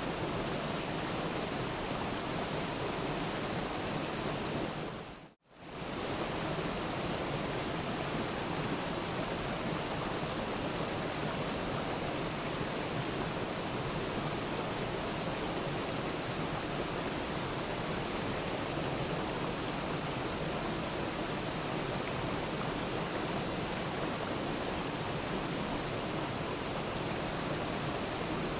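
Waterfall rushing in a steady, even roar of falling water. About five seconds in it fades out to a moment of silence and straight back.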